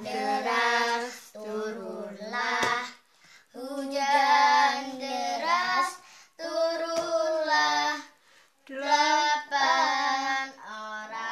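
Young girls singing an Indonesian children's Sunday-school song about Noah's ark, without accompaniment. The song comes in phrases of held notes, with short breaks for breath about three, six and eight and a half seconds in.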